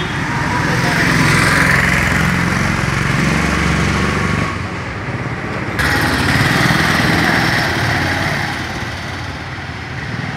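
A small engine running steadily, with street noise around it. The sound drops off about four and a half seconds in, then comes back abruptly about a second later.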